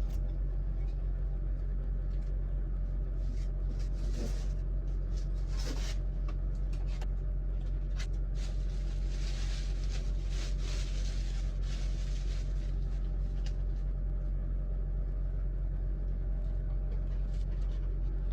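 A steady low rumble with a constant hum, with scattered light clicks and short rustles over it.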